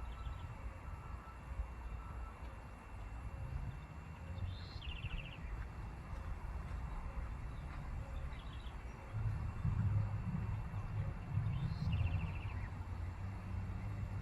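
A bird calling: twice, about five and twelve seconds in, a sharp note followed by a quick trill that falls in pitch, with fainter calls between. A low rumble underneath grows louder about nine seconds in.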